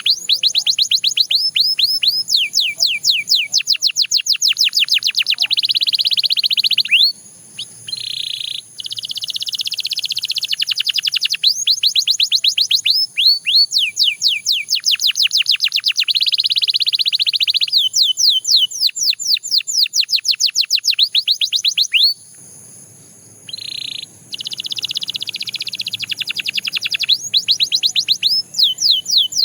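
Canary singing: fast trills of rapidly repeated, downward-sweeping high notes, one rolling phrase after another, broken by two short pauses.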